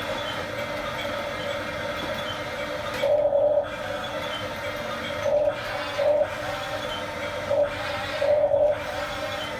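Radio-controlled toy construction vehicle's electric motor and gearbox whining steadily, with about five short louder surges as the throttle is worked.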